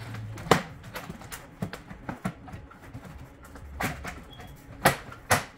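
Irregular clicks and knocks of hand tools and plastic panel parts being handled while a ceiling cassette air conditioner is taken apart, with a few sharper knocks near the end.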